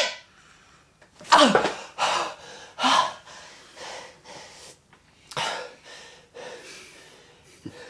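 A frightened man gasping and breathing hard: about eight sharp, shaky breaths in a row, some with a faint whimper in them, loudest in the first few seconds.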